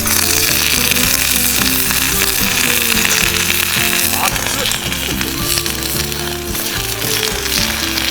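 Food frying with a loud, steady sizzle and crackle over the wood-fire stove, setting in abruptly. Background music plays underneath.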